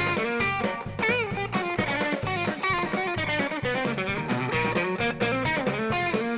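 Live band playing an instrumental break: an electric guitar plays a lead line over bass and drums, with a wavering bent note about a second in.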